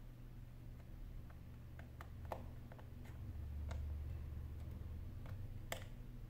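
Precision screwdriver working small screws inside an opened smartphone: a few faint, irregular clicks and ticks of the metal tip on the screws and frame, over a steady low hum.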